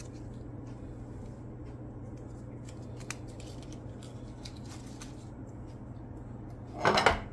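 Quiet handling of kitchen ingredients: a few faint light clicks and rustles over a steady low hum, then a brief louder sound near the end.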